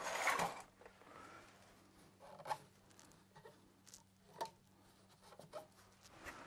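Light handling noise from fitting an oil burner onto its boiler mounting: a short rustle at the start, then a few scattered faint metal clicks and knocks.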